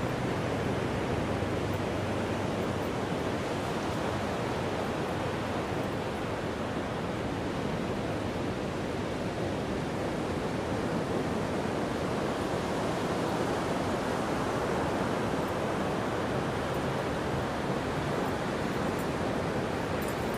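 Atlantic surf washing onto a sandy beach: a steady, even rush of breaking waves.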